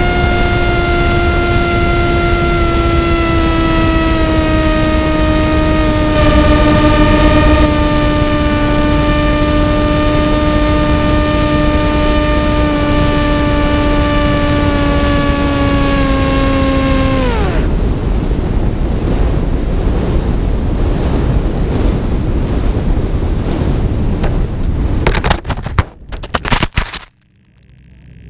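Electric motor and propeller of an FPV racing wing whining steadily from the onboard camera, the pitch sagging slowly lower until the motor cuts out abruptly about two-thirds of the way through: a blown motor. Wind then rushes over the gliding airframe, and a few sharp knocks near the end are the wing hitting the ground.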